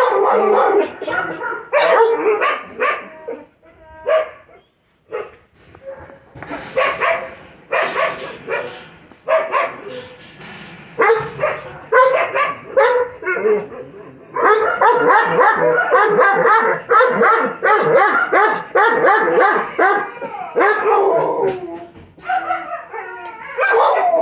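Puppies and a young dog barking and yipping in play, in quick overlapping runs of high calls. It eases off briefly about four seconds in, and there is a near-unbroken stretch of barking in the second half.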